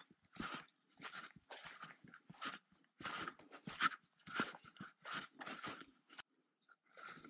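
Daiwa Sweepfire 2500 spinning reel being cranked, giving scratchy, crunching bursts about twice a second as the line is wound in, with a gap about six seconds in.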